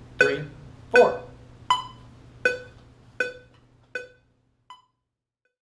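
Electronic metronome clicking at 80 beats per minute, seven even clicks, the last ones fading out.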